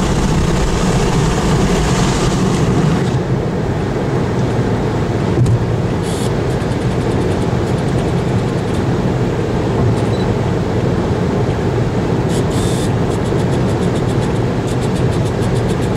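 Steady road and engine noise heard from inside a moving car on the highway.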